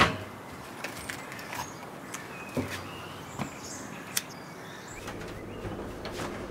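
Outdoor quiet with scattered small knocks and faint bird chirps, opening with a sharp knock. About four seconds in there is a single sharp click as a cigarette is lit.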